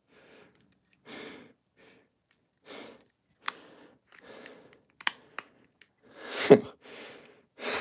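A man's breathing and sighs in short bursts about a second apart, one near the end sliding down in pitch, with a few light clicks as fingers work a loose eye lens back into a fabric Spider-Man mask.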